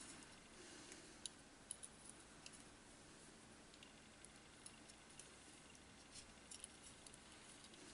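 Near silence, with faint scattered small clicks and taps from fitting a small brushless motor to its mount by hand.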